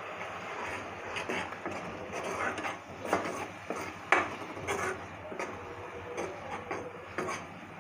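Steel spoon stirring thick frying masala in a non-stick kadhai, with irregular scrapes and knocks of the spoon against the pan over a low steady hiss; the loudest knock comes about four seconds in.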